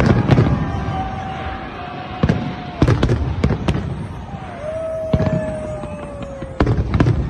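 Aerial fireworks display going off: about ten sharp bangs at irregular intervals, bunched around three seconds in, over a steady crackle and rumble.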